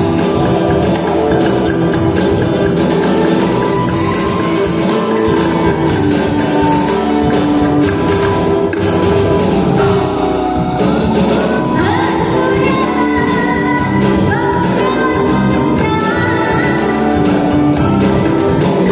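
Angklung ensemble playing a piece: shaken bamboo rattles sounding steady, sustained chords. From about ten seconds in, a gliding melody line rises over them.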